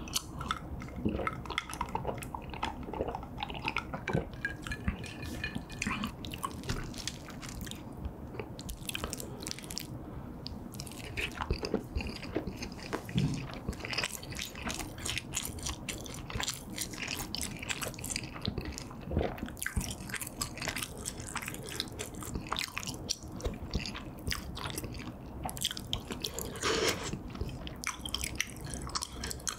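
A person eating: a sip from a glass at the start, then steady chewing and biting with wet mouth sounds and many small, irregular clicks.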